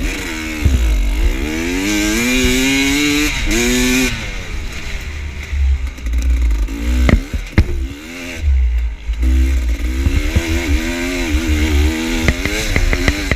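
Dirt bike engine revving up and down while riding, its pitch climbing in two long pulls with a drop between them. Sharp knocks and clatter come about halfway through and again near the end.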